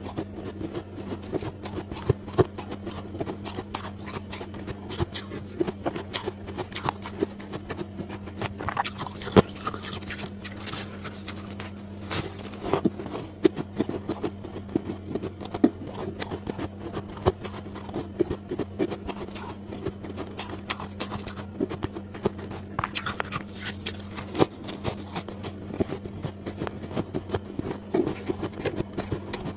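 Soft frost ice crunching close to a clip-on microphone as it is bitten, chewed and squeezed in the hand: a dense, uneven run of small crackles with louder clusters, over a steady low hum.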